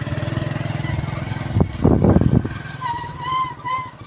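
Motorcycle engine running at low speed on a rough track, a steady rapid low putter. About halfway through, a second of louder rumbling knocks comes in, and near the end a wavering high tone sounds for about a second.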